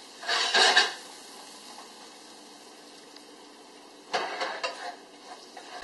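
Chopped onions sizzling in olive oil in a hot sauté pan, a steady faint hiss, with two louder bursts of sizzling and stirring, one just after the start and one about four seconds in, as a spatula turns them.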